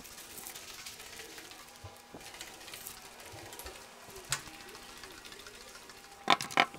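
Faint hiss with soft scattered footstep clicks, then a quick cluster of knocks on a wooden door near the end.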